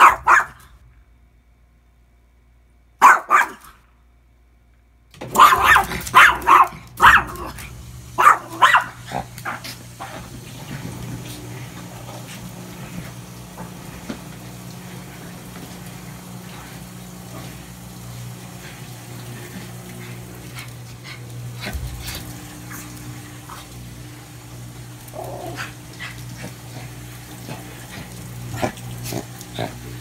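Chihuahua barking sharply: once at the start, again about three seconds in, then a quick run of barks between about five and ten seconds. After that a steady low hum runs under scattered soft scuffs and taps, which grow more frequent near the end as the dog tugs at a floor rug.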